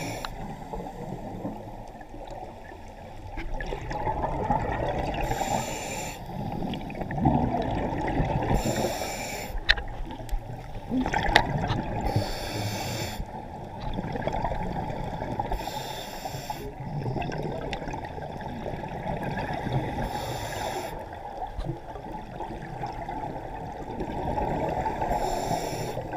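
Scuba diver breathing through a regulator underwater: a short hissing inhale about every four seconds, with bubbling exhales between.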